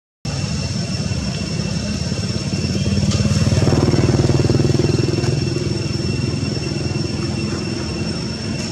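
A motor vehicle engine running steadily, growing louder for a couple of seconds around four to five seconds in and then easing back, over a steady high whine.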